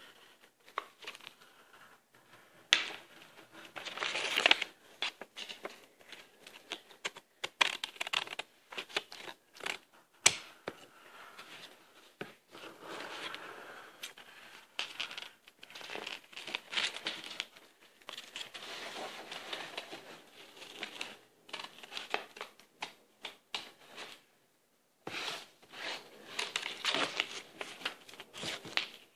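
Sharpie permanent marker drawn across paper in short, irregular strokes, with the sheet rustling and small clicks as the hands shift on it.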